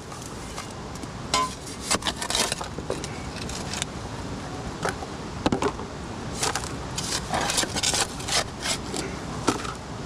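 Hands tearing out grass and roots, then a small shovel scraping soil and gravel into a plastic gold pan: many short, irregular scrapes and rustles over a steady background noise.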